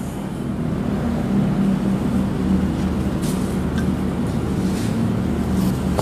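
Steady low mechanical rumble, even in level throughout.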